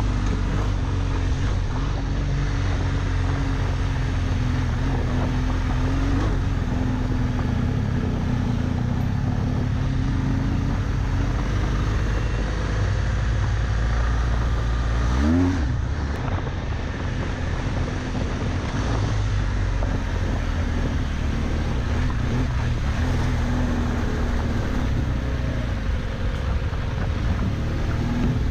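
BMW R1200GS flat-twin engine running steadily while the motorcycle rides a gravel trail, over tyre and wind noise. About halfway through the revs rise briefly, and the engine then runs a little quieter.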